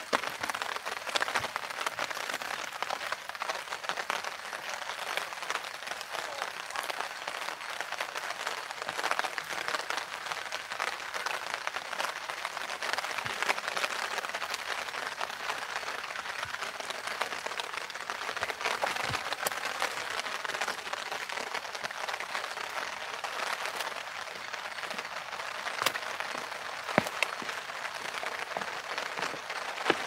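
Steady rain falling on a clear plastic umbrella overhead and on wet rock, a dense even hiss of drops with scattered sharper taps.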